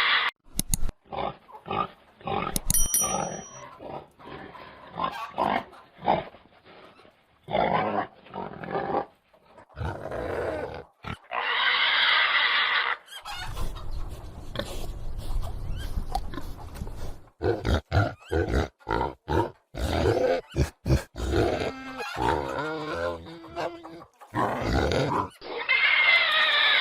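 Pigs grunting and oinking in many short, irregular calls, with a longer, higher-pitched call about twelve seconds in and another near the end.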